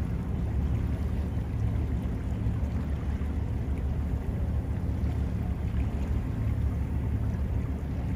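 Steady low rumble of a boat's engine, with wind buffeting the microphone.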